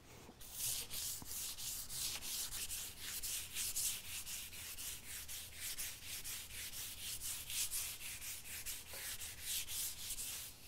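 Hand sanding of a varnished Sitka spruce mast with 320-grit sandpaper: quick back-and-forth strokes, several a second, of the paper rubbing over the hard varnish. It is a light scuffing between coats, to key the surface before the final coat of varnish.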